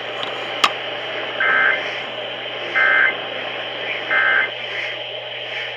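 Emergency Alert System end-of-message code over a radio broadcast: three short buzzing bursts of digital data tones about 1.4 s apart, signalling that the alert is over. A steady hiss and hum run underneath, and a single sharp click comes just before the bursts.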